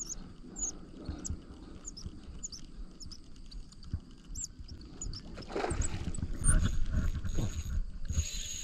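Small birds chirping in the background. From about five seconds in, loud rumbling and knocking close to the microphone as the angler moves the rod, with a thin steady high whine near the end.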